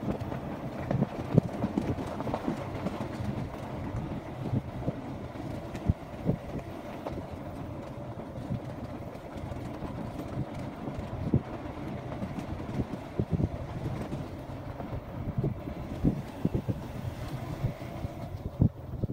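Motorcycle riding along a rough dirt track: a steady engine note under frequent short knocks and rattles from the bumps.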